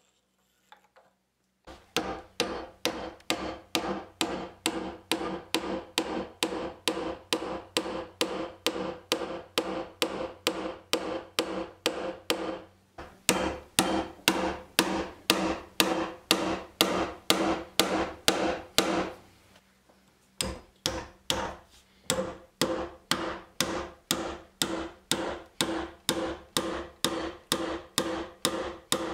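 Steel claw hammer driving wooden draw-bore pegs through the bench end cap's tenon holes, with steady blows about two or three a second. The blows come in three runs with short pauses between them.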